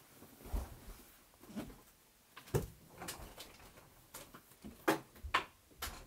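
Scattered light knocks and clatters of someone moving about a small room and handling things, with a sharper knock about two and a half seconds in and two more near the end.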